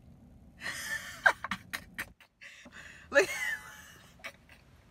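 A woman laughing in breathy, stifled bursts behind her hand, with a high squealing laugh a little after three seconds in.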